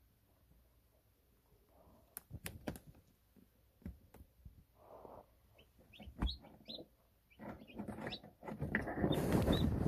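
Newly hatching chicken chick giving a few short, high peeps, among scattered taps and knocks. A louder rustling scrape builds up near the end.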